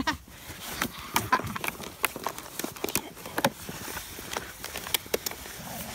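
German shepherd puppies playing in the snow: quick, irregular knocks and scuffles, with a few short whimpering cries.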